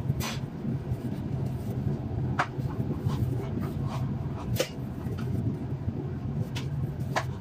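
Steady low machine hum, with a few sharp light clicks and taps spread through it as gloved hands handle mashed potato in a pot.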